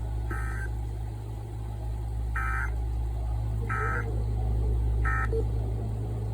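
Four short bursts of Emergency Alert System digital data tones, the end-of-message code that closes a flash flood warning, over a steady low hum.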